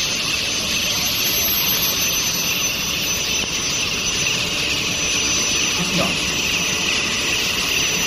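A long-bar induction hardening and tempering machine running: a steady, loud hiss with a thin, high-pitched whine held over it.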